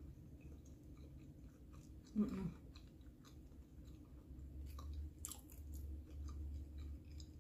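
A person chewing pieces of hash brown close to the microphone, with soft wet mouth clicks. There is a short hummed "mm" about two seconds in.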